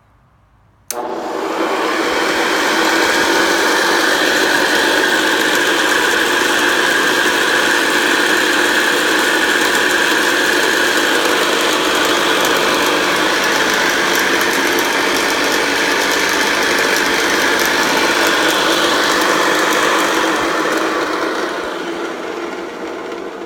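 Hoover Convertible Model 1010 upright vacuum cleaner switched on about a second in, its motor spinning up and running steadily with a very noisy brush roll, then winding down near the end. The owner hopes the brush roll only needs lubricating and not a new bearing.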